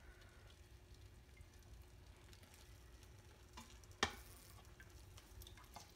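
Quiet kitchen background with a faint steady hum, broken by one sharp knock about four seconds in as a cooked chicken piece is set down in a colander.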